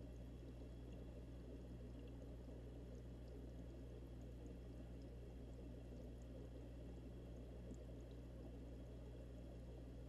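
Aquarium air stones bubbling, heard from underwater inside the fish tank, over a steady low hum; the sound is faint and sits mostly low.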